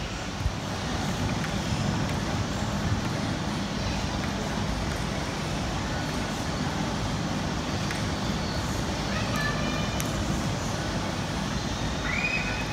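Steady background din of a busy indoor climbing gym: a low hum under distant, indistinct voices and children's chatter, with a brief raised voice near the end.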